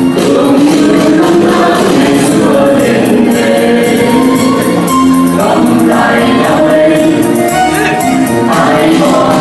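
Mixed male and female vocal group singing a Vietnamese song with musical accompaniment, steady and loud.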